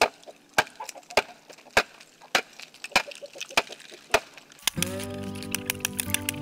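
Steel blade of a long-handled ice chopper striking and chipping frozen ice on the ground, sharp hits in a steady rhythm a little under two a second. About four and a half seconds in, music comes in over it.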